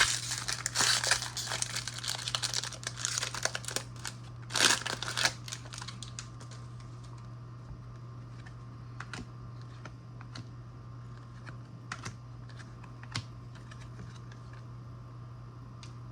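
A foil trading-card pack wrapper crinkling and being torn open for about the first five seconds, with the loudest rip near the end of it. Then only a steady low hum with a few light clicks.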